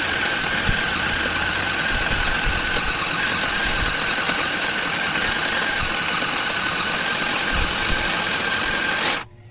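Small electric mini sewing machine running steadily as fabric is fed under the needle, a continuous motor whir with the needle mechanism clattering along. It stops abruptly near the end.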